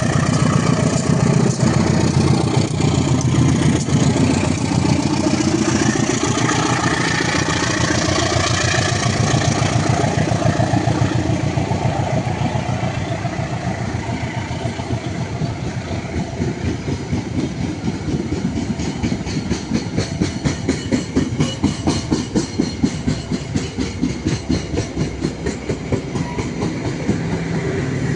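A double-headed diesel train passing close by: the locomotives' engines run loud at first, then from about halfway the wheels of the passing carriages clatter in a steady rhythm over the rails.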